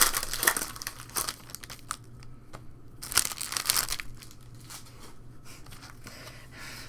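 Trading card pack wrappers crinkling and tearing as packs are opened by hand, with bursts of rustling in the first second and again about three seconds in, then lighter handling clicks.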